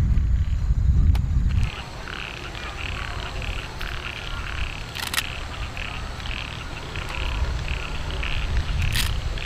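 Frogs croaking in a steady chorus, short calls repeating about twice a second. A low rumble fills the first couple of seconds and stops suddenly, and two sharp snaps stand out, about five seconds in and near the end.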